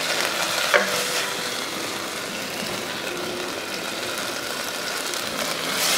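Steady sizzling hiss of fish frying in a wok, with one short click a little under a second in.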